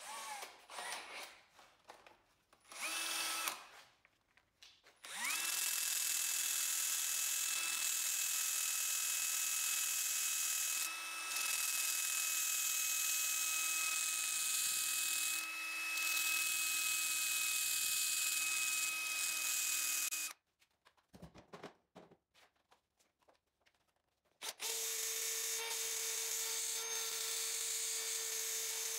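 Handheld rotary power tool spinning an abrasive wheel against the steel of an old adjustable wrench, grinding and polishing off rust. After a short burst, it spins up about five seconds in and runs with a steady high whine over a hiss of abrasion, briefly dipping under load twice, then cuts off about twenty seconds in. A few seconds later it starts again at a lower pitch.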